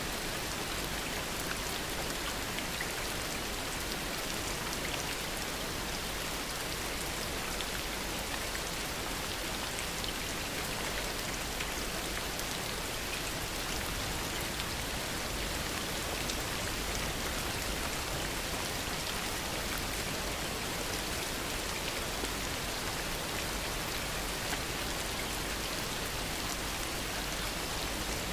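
Heavy rain falling steadily: a dense, even hiss of drops with many small individual drop ticks.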